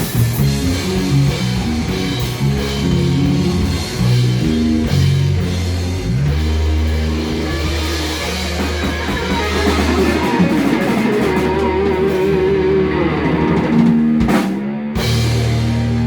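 Live rock band, with electric guitar and bass over a drum kit, playing the closing bars of a song. A wavering held guitar note comes about two-thirds of the way through, then two sharp hits shortly before the end and a final note held.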